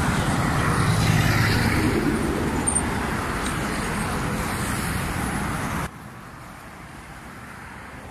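Road traffic noise from cars driving past on a busy road, a steady rumble that is loudest in the first couple of seconds. About six seconds in it drops sharply to a much quieter level.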